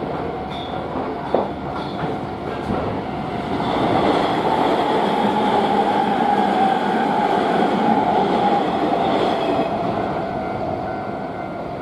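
Electric train passing over a level crossing. Its running noise swells about four seconds in and eases off near the end, with a steady ringing tone behind it, typical of the crossing's warning bell.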